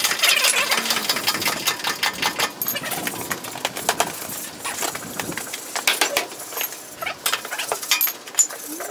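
Hydraulic bottle jack pumped by hand, giving a run of irregular metallic clicks and knocks, as it presses down on a tyre's sidewall to break the bead from the rim.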